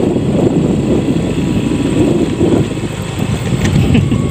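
Motorcycle riding along with its engine running, mixed with wind noise on the microphone as a steady low rumble.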